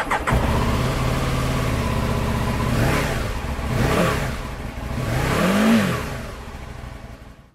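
A 2007 Aprilia Tuono 1000 R Factory's 997cc V-twin engine catches just after the start and idles, then is blipped three times on the throttle. The last rev goes highest and is the loudest before the sound dies away near the end.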